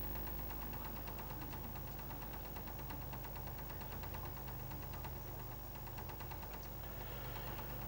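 A cat flap vibrating steadily in its frame, a fast faint buzz over a steady low mechanical hum. The householders take it for the sign of underground drilling.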